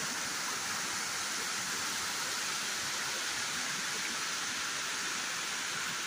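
Waterfall in full flow, white water pouring over rocks in a steady, even rush.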